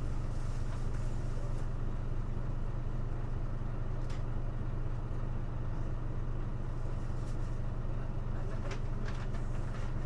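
Hino Blue Ribbon city bus engine running at a steady note while the bus is under way, heard from inside the cabin, with a few light clicks.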